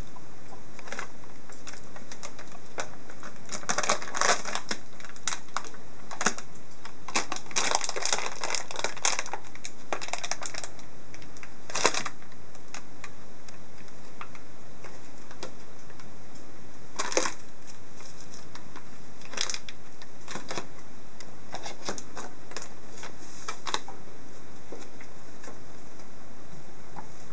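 A ferret rummaging among foil and plastic packaging on an electric stove top makes irregular runs of crinkling and sharp clicks. They are busiest in the first half, with single louder snaps now and then.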